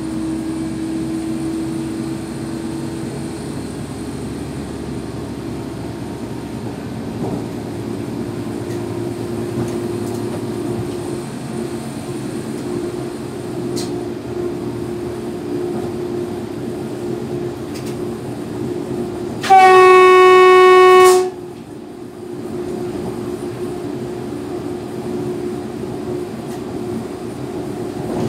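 Steady running noise of an electric train heard from inside its driver's cab, with a faint steady whine. About two-thirds of the way through, the train's horn sounds one loud blast of about two seconds that cuts off sharply.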